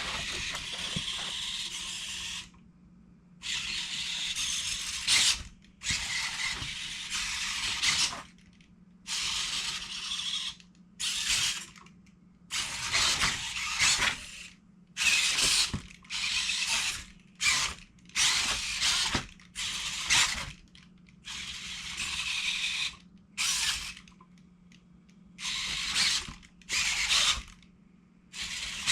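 Servo motors of a Robosen Optimus Prime Elite robot toy whirring in a run of short bursts, each lasting about half a second to two seconds, with brief pauses between, as the robot moves its joints.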